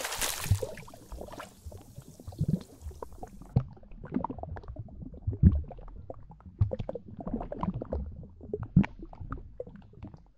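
Stomach gurgling and rumbling sound effects: a string of short, irregular wet gurgles and low rumbles, following a hiss that fades out over the first few seconds.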